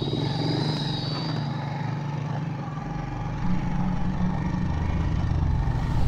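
Small motorcycles approaching along a dirt track, engines running steadily and getting louder about halfway through.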